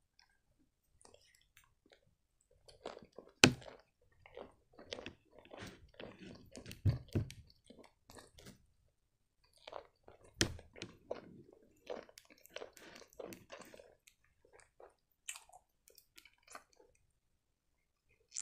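Close-miked chewing of a soft chocolate-filled sponge cake (Milka Soft & Choc), heard as stretches of wet mouth noises. It starts after a couple of quiet seconds, with a sharp click about three and a half seconds in and another about ten seconds in.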